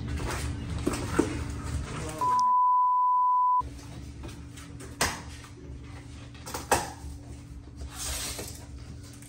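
A steady 1 kHz censor bleep about a second and a half long, starting about two seconds in, with all other sound cut out under it. Before and after it come scattered knocks and scrapes of a large cardboard box being handled and its flaps opened.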